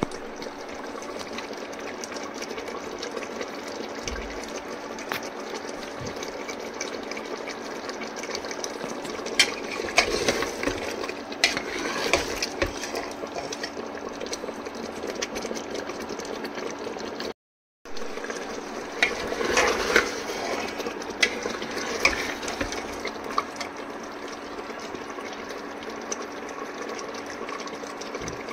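Kitchen cooking noise: a steady hiss and bubble from the mutton curry cooking in its pot, with scattered clinks and knocks of a utensil against the pot, busiest in two stretches, before and after a momentary break in the sound.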